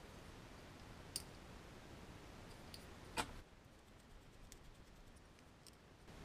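Faint clicks and ticks of small screws and metal RC suspension parts being handled and fitted with a hex driver, over near silence: two sharper clicks about a second in and about three seconds in, then a few fainter ticks.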